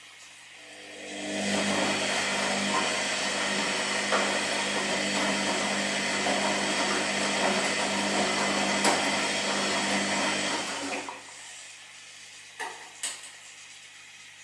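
Washing machine running with a steady hum, then its motor starts about a second in and turns the drum for about ten seconds with a loud, even noise before stopping. Two short knocks follow near the end.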